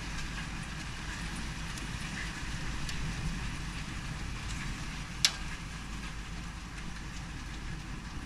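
Small hailstones and rain falling steadily onto a wooden deck and patio furniture: a constant hiss with a low rumble under it and scattered light clicks of hailstones, one sharper click about five seconds in.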